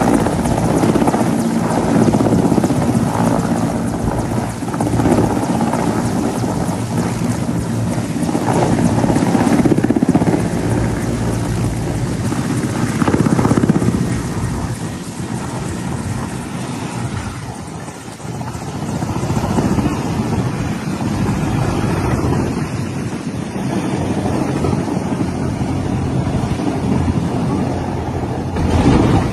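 Mil Mi-17 helicopter's twin turboshaft engines and rotor running close by, loud and continuous. The sound swells and fades several times, with a dip past the midpoint.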